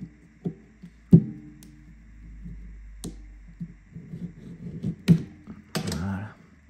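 Small tools and smartphone parts being handled on a workbench: a series of sharp knocks and taps, the loudest about a second in, and a short scraping rustle near the end.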